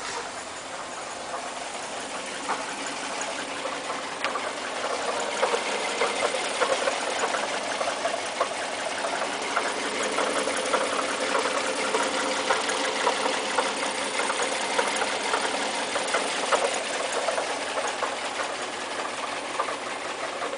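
Fiat Brava engine running with a rattling, ticking noise over the steady engine sound, getting louder about five seconds in; this is the strange "ronco" (growl) in the engine that the owner is trying to show.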